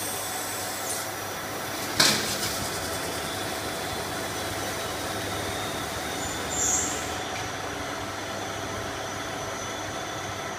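Automatic stretch film rewinding machine running, a steady mechanical hum with a hiss of film over the rollers. A single sharp knock comes about two seconds in, and a brief high hiss comes near the two-thirds mark.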